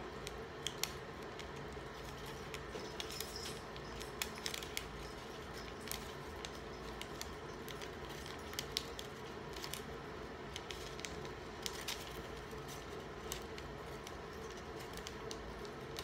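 Small craft scissors snipping through vellum, a translucent tracing paper, in soft, short, irregular cuts.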